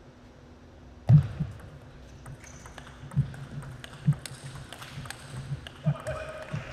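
Table tennis rally: a loud sharp knock about a second in as the serve is played, then the celluloid-plastic ball clicking off rackets and table about once a second.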